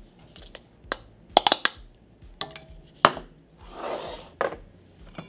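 Metal spoon and bowls knocking and clinking against a stainless mesh sieve as flour is spooned and tipped into it: a handful of sharp knocks, a quick cluster of them about a second and a half in, with a brief scraping rustle a little after the middle.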